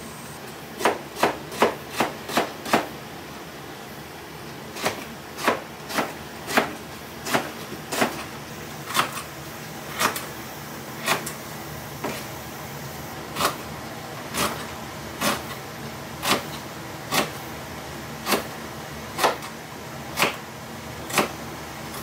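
Kitchen knife chopping vegetables on a cutting board: a quick run of about six chops near the start, then after a short pause, steady single chops about once a second.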